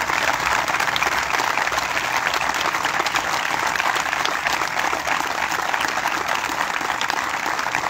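A crowd of spectators and players applauding, many hands clapping in a steady, sustained round.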